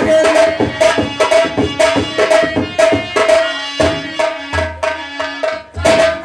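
Instrumental nautanki folk music: a hand drum played in a fast rhythm under a repeated, held melody note.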